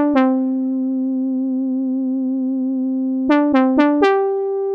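Arturia Prophet-V software synthesizer playing a synth-brass horn line on its own: a long held note with gentle vibrato, a quick run of three short notes about three seconds in, then a step up to a higher held note.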